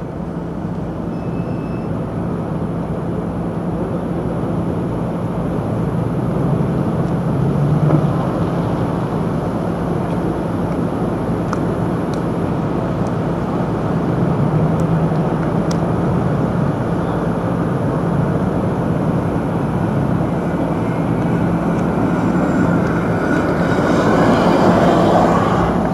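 Road traffic: a car engine running close by with a steady low hum, and another car passing close near the end.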